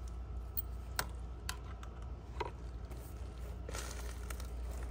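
Handling noise as a pole saw's saw head is fitted onto the shaft: a few short sharp clicks about a second in, at about one and a half seconds and near two and a half seconds, then a brief rustle near four seconds, over a steady low rumble.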